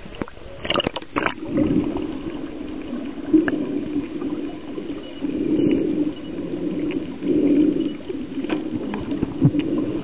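Splashing as the camera breaks the water surface in the first second or so, then muffled underwater noise with a recurring bubbling swell every couple of seconds.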